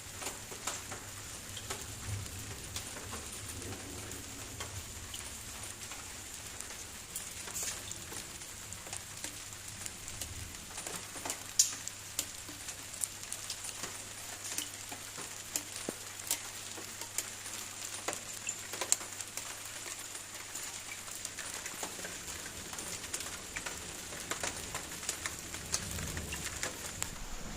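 Steady rain falling, an even hiss with scattered ticks of single drops; one sharper drop hit lands just before halfway.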